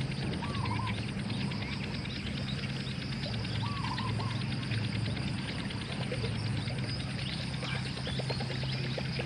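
Outdoor ambience made up of a dense chorus of small calling animals and a steady low hum underneath. Two short warbling chirps come through, one near the start and one a little before the middle, and a run of faint ticks comes near the end.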